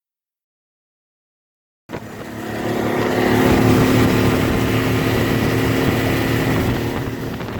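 Total silence for about two seconds, then an electric sewing machine starts up and runs steadily as it stitches piping, its motor building up to speed over a second or so.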